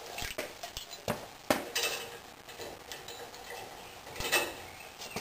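Steel crane chain clinking and rattling as it is handled and wrapped around a log, with a few sharp metallic knocks, the loudest about a second and a half in and another just past four seconds.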